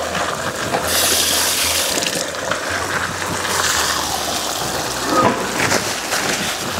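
Chicken pieces and a heap of sliced onions sizzling in a stainless-steel pan over fairly high heat as they are stirred and turned, the hiss surging louder about a second in and again around four seconds.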